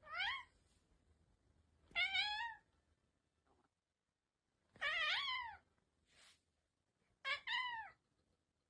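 A cat meowing four times, short meows each rising then falling in pitch, spaced a couple of seconds apart.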